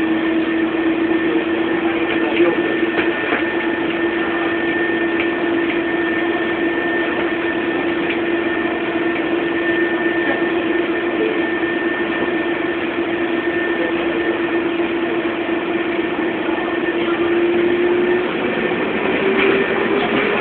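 Rubber-tyred automated metro train of the Taipei MRT Muzha line running, heard from inside: a steady motor whine with a fainter higher tone over the rolling noise, and a few light knocks early on. The whine rises in pitch over the last couple of seconds.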